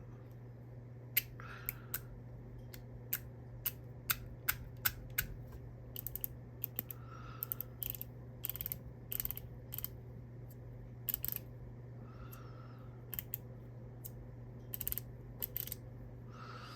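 Irregular small, sharp clicks and taps from a fidget spinner's parts being handled and taken apart, over a steady low hum.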